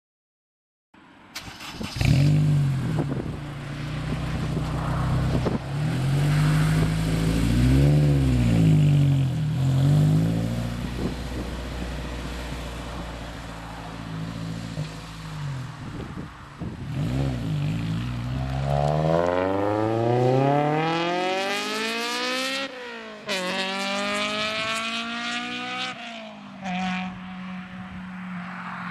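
Honda S2000's inline-four with cold air intake, header, test pipe and dual exhaust starting up warm about a second in, then idling and revved in several quick throttle blips. Later it accelerates hard, the pitch rising steeply with a brief dip at a gear change, then falling as the car passes and fades away.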